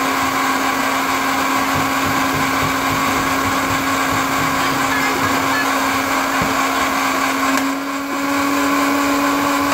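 Electric countertop blender running steadily, its motor giving one even hum as it blends fresh fruit juice.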